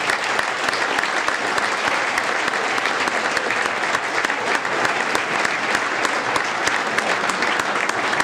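Audience applauding steadily in a hall, many hands clapping at once, with no let-up.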